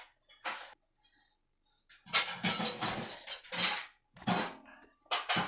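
A utensil scraping and clinking against a bowl in several noisy bursts, the longest lasting about two seconds.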